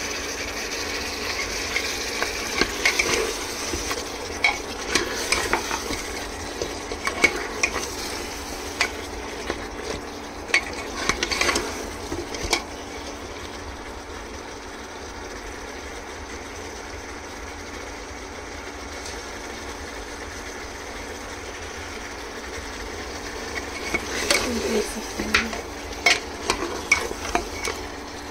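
Mutton frying in oil in a pot with a steady sizzle, while a metal spoon scrapes and clinks against the pot as the meat is stirred, in a busy spell through the first half and again near the end. The meat is at the frying stage, cooking until the oil separates.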